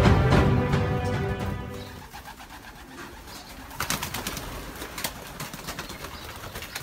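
Background music fades out over the first two seconds, leaving racing pigeons in a loft cooing, with wing flaps and a few sharp clicks.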